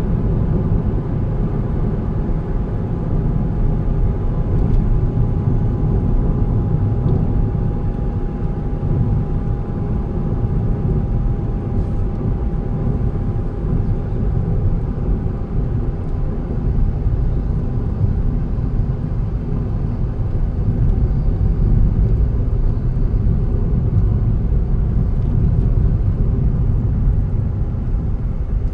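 Car driving on a road: a steady low rumble of engine and tyre noise, with a faint whine that slowly falls in pitch through the middle.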